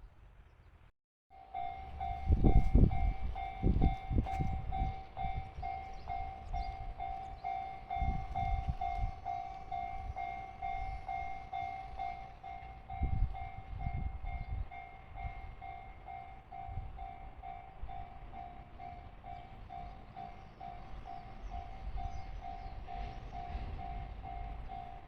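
Japanese railway level-crossing warning bell ringing, an even, quickly repeating clang that starts just over a second in after a brief cut. Irregular low rumbles and thumps sound underneath, loudest a couple of seconds in.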